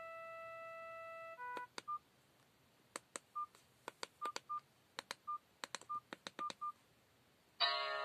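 Blaupunkt BS 02 mobile phone: a synthesized ringtone holds a chord that cuts off about a second and a half in. Then come keypad clicks, several with short single-pitch key beeps, as the menus are stepped through. Near the end a synthesized message-tone melody starts, louder.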